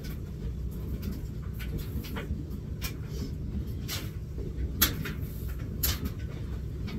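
Light clicks and knocks from clothes and a plastic laundry basket being handled while loading a washing machine, the loudest about five and six seconds in, over a steady low hum.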